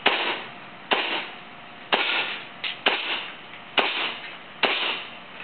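TFGW M14 gas blowback airsoft rifle, propane-powered, firing six single shots about a second apart, each a sharp crack of the shot and cycling bolt with a short ringing tail.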